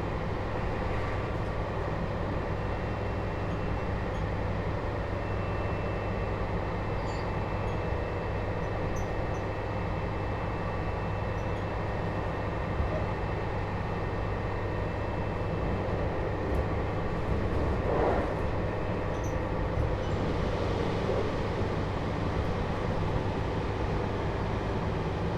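JR Hokkaido 721-series electric train running at speed, heard inside motor car MoHa 721-4202, which has a Toshiba GTO inverter: a steady rumble of the wheels on the rails and a thin, steady high whine through most of it.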